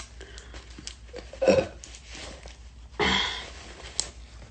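A woman burping: a short, loud belch about a second and a half in, then a longer, breathier burst at about three seconds that fades away.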